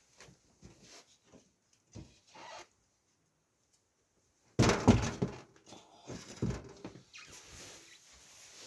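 Handling noise from working on a homemade PC case: light knocks and rustles, then a louder clatter and rustle of parts being moved about halfway through.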